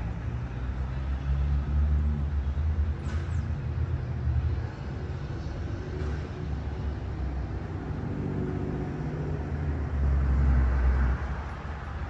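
Low vehicle engine rumble, steady, swelling louder from about a second in to four and a half seconds, and again briefly around ten seconds.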